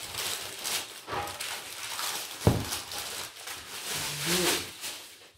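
Baking paper rustling and crinkling as it is pulled off a freshly baked loaf, with one sharp knock about halfway through.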